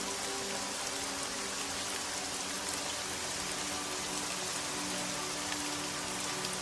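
Steady rain with scattered drops pattering, a constant hiss. Soft music holds a few low, sustained notes underneath.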